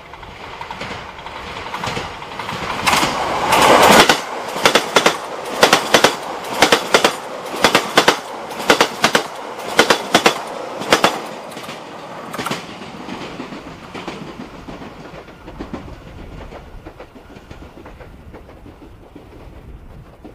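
Train passing close by: the rumble swells to its loudest about four seconds in, then the wheels clack over rail joints in quick pairs about once a second as each car goes by, and the sound fades away after about twelve seconds.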